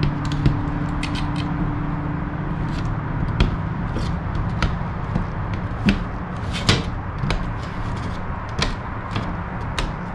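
Hand fluting pliers crimping the flange of an aluminium wing rib, a sharp click with each squeeze, irregularly about every half second to second, over a steady background hum.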